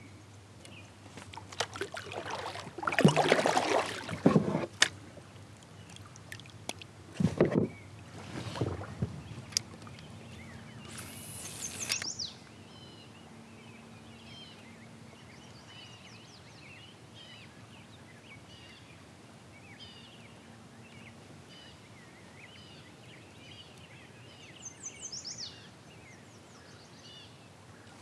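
Knocking and splashing from a fishing kayak and its gear, loudest in the first twelve seconds, with a sharp hiss about eleven seconds in. After that, small birds sing faintly over calm water, including a quick falling trill near the end.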